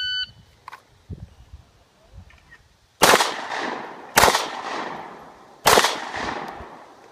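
Electronic shot timer gives one short start beep, then about three seconds later a pistol fires three shots, each a second or more apart, every shot followed by a long fading echo.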